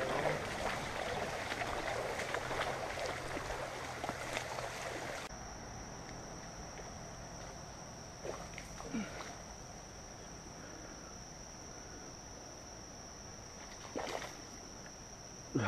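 Creek water running and splashing for about five seconds, then an abrupt cut to insects droning steadily at a high pitch over a quiet outdoor background.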